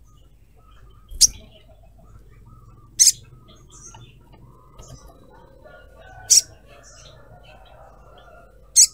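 Olive-backed sunbird giving four short, sharp, high-pitched calls a couple of seconds apart, over fainter chirping in the background.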